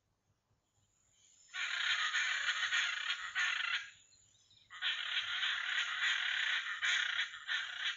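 Loud, harsh animal calls in two bouts: they start suddenly about a second and a half in, break off for about a second near the middle, then resume with a pulsing rhythm.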